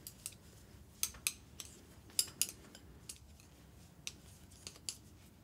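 Metal knitting needles clicking lightly against each other as stitches are worked, in short irregular pairs of clicks with a pause of about a second and a half in the middle.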